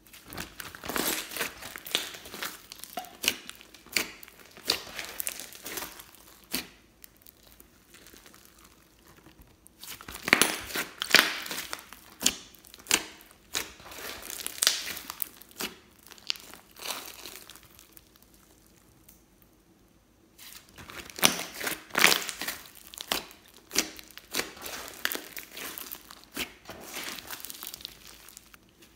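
Glossy slime squeezed, folded and stretched by hand, giving quick sticky clicks, pops and crackles. They come in three spells, with short quiet pauses about a third and two thirds of the way through.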